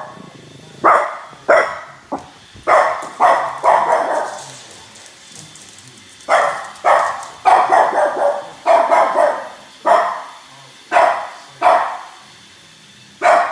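French bulldog barking repeatedly at a robot vacuum, in short sharp barks. There is a flurry at first, a pause of about two seconds, then a steady run of barks roughly one every half second to second.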